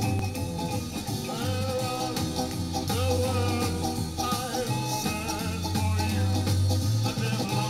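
Early-1960s pop-rock playing from a 7-inch vinyl single on a record player, with a pulsing bass line under melodic lines.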